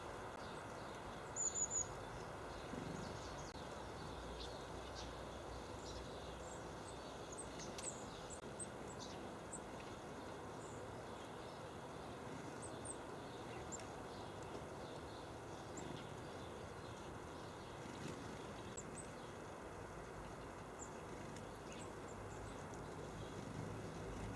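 Small songbirds calling with short, thin, high chirps scattered throughout, including a louder burst of three quick high notes about a second and a half in, over a steady outdoor background hiss.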